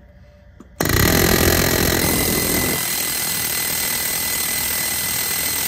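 Pneumatic air hammer hammering rapidly on a stuck front driveshaft. It starts abruptly about a second in, runs about five seconds without a break, and cuts off sharply near the end. The hammering is meant to drive loose a driveshaft carrier bearing that is stuck in its bore.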